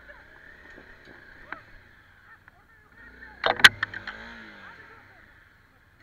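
Honda CRF250L's single-cylinder four-stroke engine running at low revs, with a cluster of sharp knocks and clatter about three and a half seconds in, followed by a brief rev up and down.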